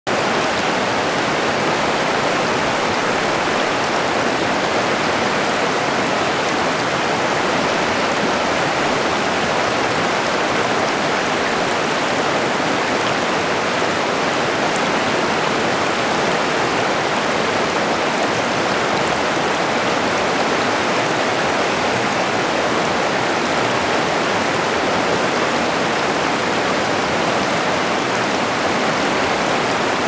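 River water rushing over rocks and rapids: a steady, even rush of flowing water.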